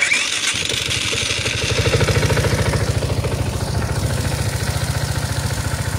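Voge SR4 Max scooter's single-cylinder engine starting suddenly, with a brief rising whine at the start, then idling with an even pulse. Over the idle comes an abnormal noise that the owner links to the model's chronically breaking starter motor gear set.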